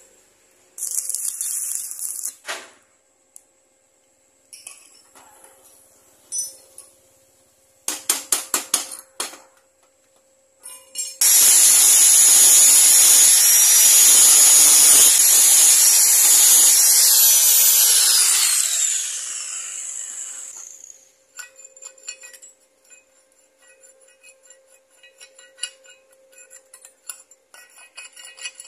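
A handheld power tool runs loud with a high whine for about seven seconds, then winds down as it is switched off. Before it come light metal taps and a quick run of strikes, and after it small metal clinks.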